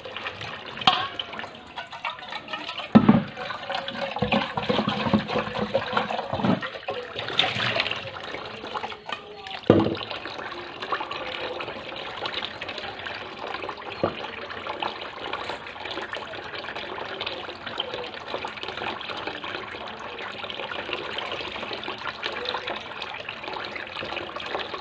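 Kitchen tap running steadily into a basin of water as hands wash tilapia in it, with splashing. A few knocks in the first ten seconds as an aluminium pot is moved and set down in the sink.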